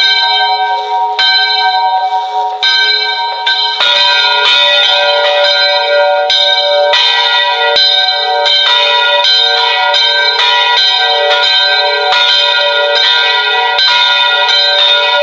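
Bells struck over and over as an emergency alert tone, each strike ringing on into the next: a few slow strikes about a second and a half apart, then from about four seconds in a faster, denser peal of overlapping bell tones at several pitches.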